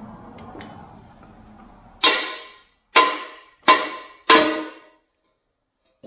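Four sharp metal-on-metal hammer blows on a steel pivot pin of a Kubota BX backhoe's bucket linkage, starting about two seconds in and less than a second apart, each ringing briefly: knocking the pin out to change the bucket.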